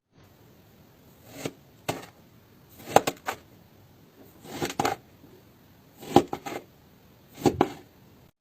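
A series of short, sharp strokes, about nine, mostly in pairs roughly every one and a half seconds, each swelling quickly to a crisp hit.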